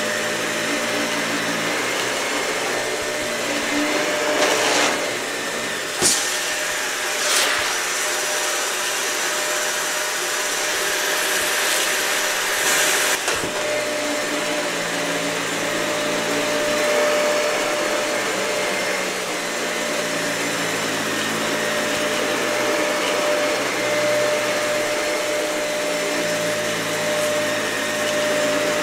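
Dyson vacuum cleaner running steadily over a matted, dirty carpet, with a constant whine. Between about four and thirteen seconds in there are a few brief crackling bursts and clicks as debris is sucked up.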